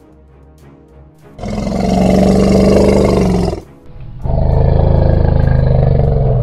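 Two long, loud animal roar sound effects, about two seconds each with a short gap between, over background music.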